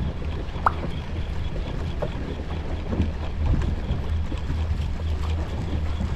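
Fishing boat's engine running with a steady low drone, with one sharp click just under a second in.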